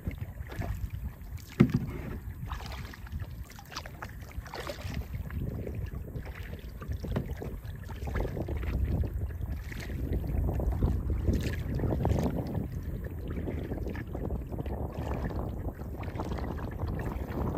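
Kayak paddling: the paddle blades splash and drip water with each stroke over a low rumble, with one sharp knock about one and a half seconds in.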